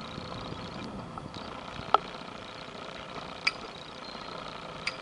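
Narrow boat's engine running steadily. A sharp click about two seconds in, and two fainter clicks later.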